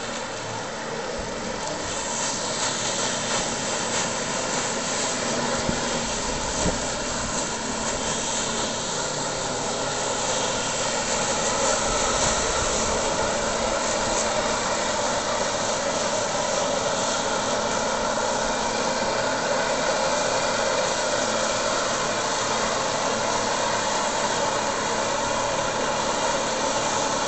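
Jet ski engine running steadily at high revs, pumping water through the hose to hold a flyboard rider aloft, with the rush of the water jets.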